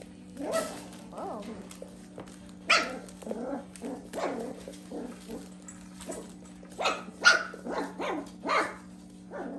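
Mini goldendoodle and labradoodle puppies barking in short, high-pitched yaps, a few at a time, with a quick run of them near the end. A steady low hum runs underneath.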